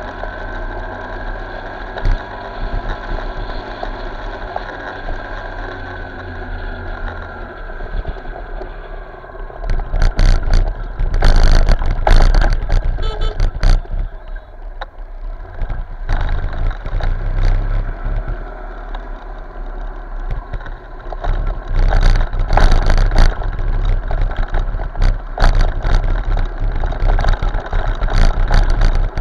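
Motorcycle engine and road traffic heard through an action camera's microphone during a ride. The engine note is steady at first. From about ten seconds in, heavy wind buffeting on the microphone comes and goes over it.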